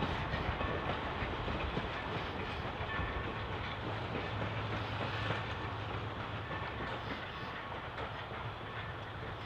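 Railroad train running along the track: a steady rolling rumble that eases off slightly toward the end.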